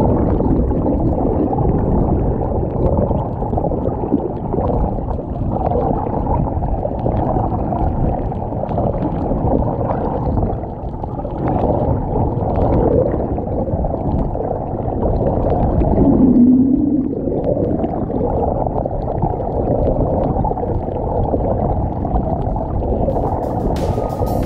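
Loud, muffled water noise, rushing and gurgling with a low rumble and almost nothing in the higher pitches, like water heard through a submerged camera housing. A brief louder low hum stands out about two-thirds of the way through.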